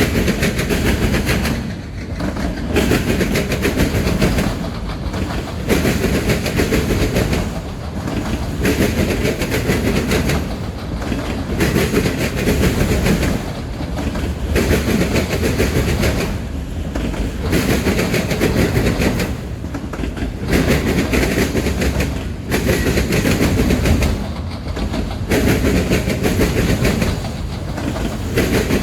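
Freight train cars rolling past, their wheels clicking over the rail joints. There is a steady rumble that dips briefly about every three seconds as each car goes by.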